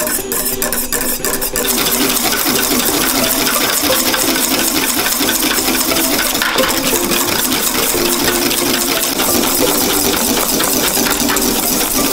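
Wire whisk beating fast against the sides of a stainless steel bowl, a continuous metallic clatter as an egg-yolk and milk mixture is whipped. The strokes quicken and run together about a second and a half in.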